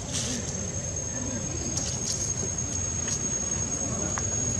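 Steady high-pitched insect drone over a low rumbling background, with a few brief high chirps.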